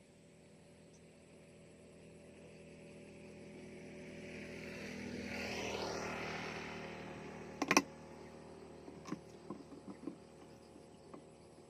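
A motor vehicle's engine passes by, swelling for several seconds and then fading as its pitch drops. A couple of sharp clicks follow, the loudest just after the engine peaks, then a few fainter ticks.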